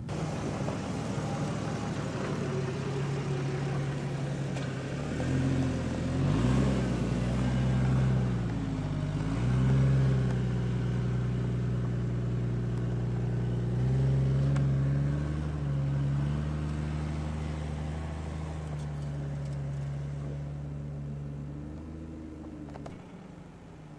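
Jeep Grand Cherokee's engine working under load as it climbs a steep sandy slope off-road. The revs rise and fall several times in the first half, then hold steadier, and the engine eases off near the end.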